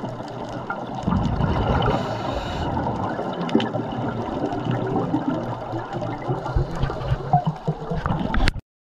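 Muffled underwater water noise with bubbling and gurgling, with scattered sharp clicks. It grows louder about a second in and cuts off suddenly near the end.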